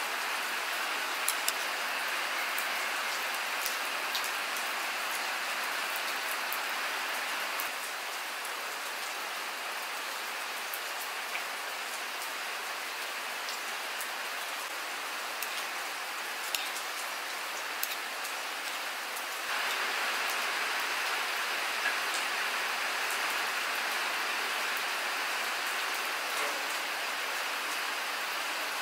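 Steady rain falling, an even hiss of drops on hard surfaces with scattered light ticks. The level drops slightly about a third of the way in and rises again about two-thirds through.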